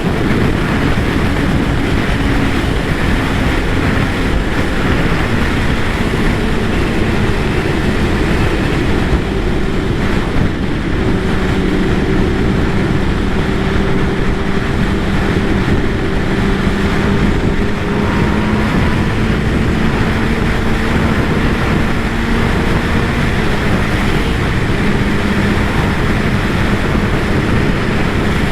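Kawasaki ZX-10R's inline-four engine running at a steady cruise under heavy wind noise on the microphone, its pitch drifting slowly up and down.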